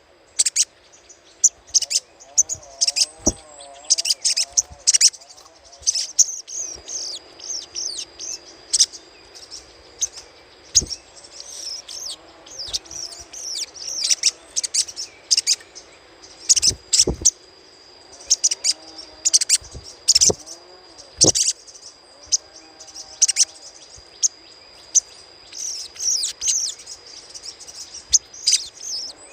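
Sogok ontong (sogon) bird chattering: rapid bursts of short, sharp, high-pitched chirps in irregular clusters, over a thin steady high tone.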